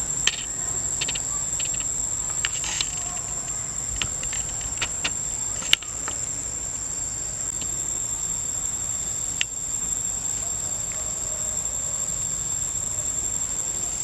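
Steady, unbroken high-pitched drone of forest insects, with a few scattered sharp clicks and taps; the sharpest click comes a little before the middle.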